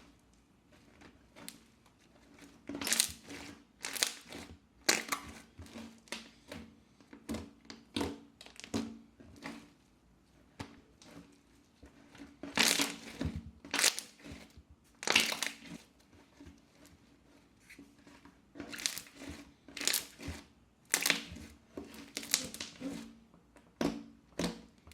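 Slime being squeezed and pressed by hand, giving repeated crackling, crunching bursts at an uneven pace of roughly one or two a second, some much louder than others.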